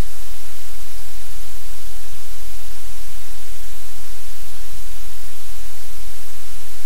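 Loud, steady static hiss across the whole range with a low hum beneath it, unchanging throughout.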